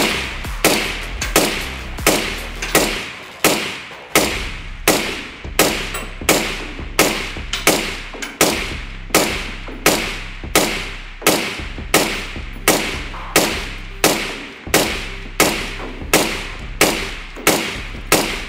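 Suppressed 5.56 NATO AR-15-style rifle fitted with a Troy Kryptos reflex suppressor, firing a steady string of paced semi-automatic shots, about one and a half a second. Each shot is a sharp report with a short ringing tail.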